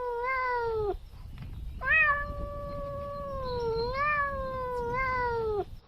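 Domestic cat giving long, drawn-out meows: one call trails off about a second in, and a second call of nearly four seconds begins about two seconds in, wavering in pitch and sliding down as it ends.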